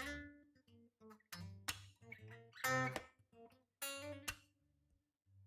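Background acoustic guitar music: separate plucked notes and short strums, each ringing out and fading, with brief pauses between them.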